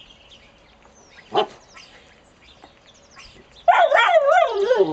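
Ten-week-old Alaskan Malamute puppy vocalising at an unfamiliar pig's ear chew. It gives one short yip, then near the end a loud, wavering, whining howl that slides down in pitch at its close.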